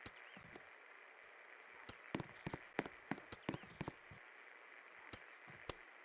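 A 24-inch Zabeen ceiling fan running, with a faint steady hiss of moving air. Irregular sharp clicks and taps sound over it, most of them bunched together about two to four seconds in.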